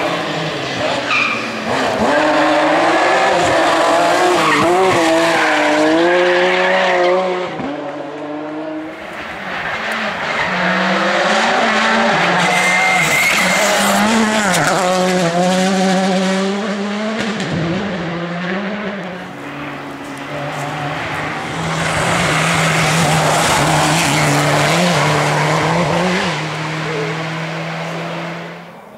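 Rally cars at full competition pace, engines revving up and down hard through gear changes in three loud swells. The sound drops away abruptly at the end.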